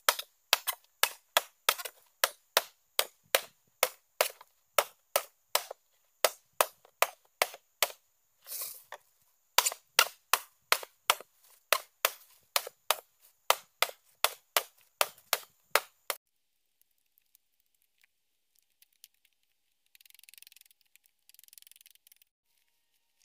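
A blade chopping along a green bamboo pole in quick, sharp strikes, about two to three a second, scoring the culm so it can be opened out flat into bamboo floor slats. The chopping stops about 16 seconds in, and a faint dry rustle of split bamboo being handled follows near the end.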